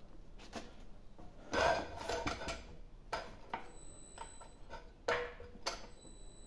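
Thin sheet steel clinking and scraping against the steel rollers of a bead roller as a test strip is worked between the dies. The sounds come as separate sharp clinks, with the loudest cluster of scrapes about a second and a half in.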